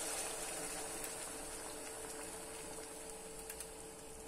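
Hot water hissing and bubbling in a hot stovetop pot as boiling water goes into it. The hiss fades gradually, with a faint steady hum underneath.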